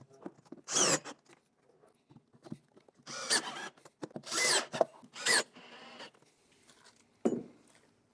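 Several short bursts of a cordless drill driving screws into a wooden sauna step element.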